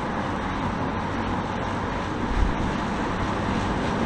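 Mercedes-Benz Sprinter 316 CDI pickup driving along a road: steady engine and tyre noise, with a brief low thump about two and a half seconds in.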